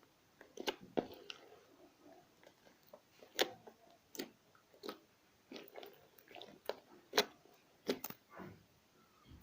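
Slime being squished and poked, giving irregular sharp clicks and pops, about a dozen over several seconds.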